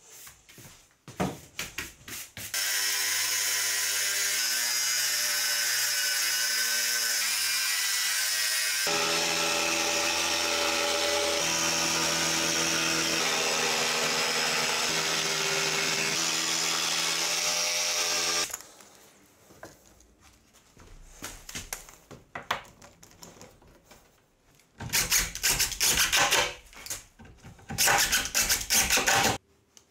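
A few short scraping strokes of a push broom, then a jigsaw cutting through a sheet of MDF for about sixteen seconds, its pitch shifting once partway through. After scattered light clicks and knocks, a cordless impact driver hammers screws into the wood in two bursts near the end.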